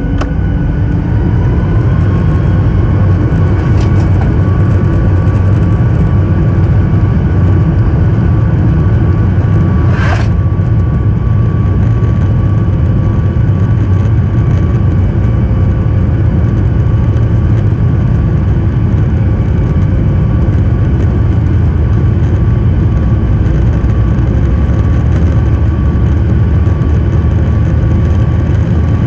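Boeing 737 MAX 9's CFM LEAP-1B turbofans heard from inside the cabin over the wing, spooling up to takeoff thrust with a whine rising in pitch over the first two seconds, then running loud and steady through the takeoff roll. A short click about ten seconds in.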